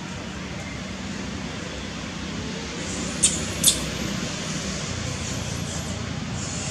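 Steady outdoor background rumble, like distant traffic, with two short high-pitched chirps about half a second apart a little past the middle.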